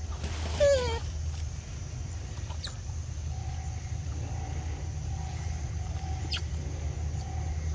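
A short animal call sliding down in pitch, the loudest sound, about half a second in, over a steady low rumble. A faint steady high tone comes in a few seconds later, with a few faint ticks.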